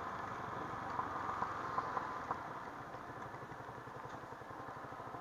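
Yamaha R15 v3's single-cylinder engine running at low road speed, with an even pulse; it eases off a little after about three seconds. A few light clicks come between about one and two and a half seconds in.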